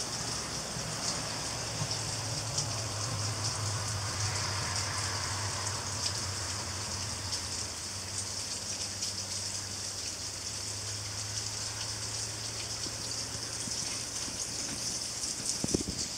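Steady rain falling, an even hiss flecked with fine drop ticks. A low steady hum sits under it and fades out after about twelve seconds, and a couple of knocks come near the end.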